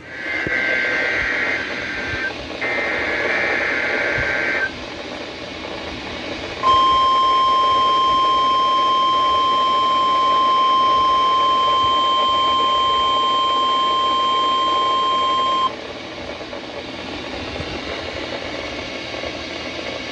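NOAA Weather Radio alert sequence heard through a radio receiver: a few seconds of shrill, warbling SAME digital header bursts, then the steady 1050 Hz weather radio alert tone held for about nine seconds, cutting off abruptly into a steady hiss.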